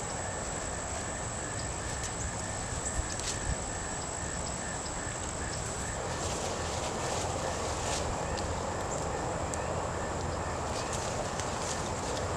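Outdoor backyard ambience: a steady background hiss with a high thin whine and a soft pulsing at about four a second that both stop about six seconds in, and a few faint clicks.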